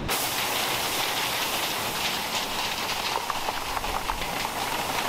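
Rain falling steadily, with many small drops ticking on nearby surfaces.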